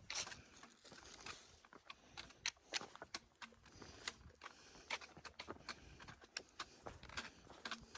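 Footsteps of a hiker picking his way over a trail of bare rock: irregular scuffs and clicks of boots on stone.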